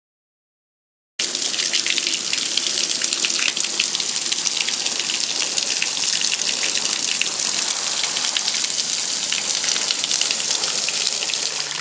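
Water gushing hard and steadily, cutting in abruptly about a second in.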